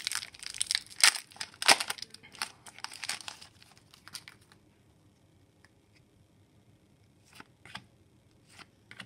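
Foil wrapper of an Upper Deck hockey card pack being torn open and crinkled, with several sharp rips, for the first three seconds or so. Then it goes quiet except for a few soft clicks of the cards being handled near the end.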